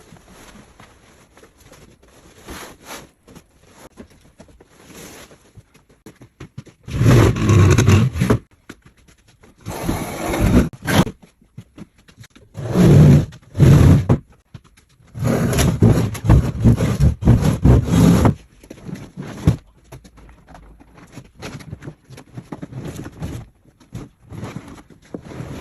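Wet vinyl floor covering being dragged and folded over, scraping and rustling in several loud bursts with quieter crackling between them.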